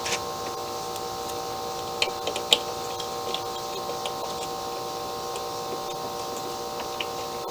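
A few light, sharp clicks and taps of hand work disconnecting a Toro mower's drive cable, three close together about two seconds in with the sharpest just after, then fainter ticks, over a steady hum.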